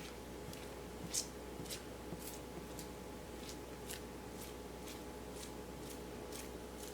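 Melted dark chocolate being scraped and spread across a marble slab with a scraper, in short strokes about twice a second, while the chocolate is cooled for tempering. A steady electrical hum runs underneath.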